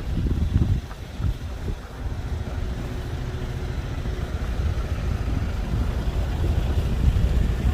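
Street traffic on a snowy city street: a steady low rumble of vehicles, uneven at first, with a faint engine hum joining about halfway through.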